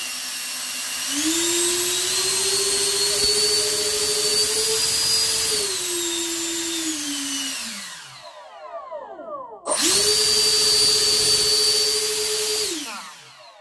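Twin 64 mm electric ducted fans on a 6S LiPo running at about 60% throttle, a steady high whine. They spool up about a second in, wind down with falling pitch, snap back up almost ten seconds in, and wind down again near the end.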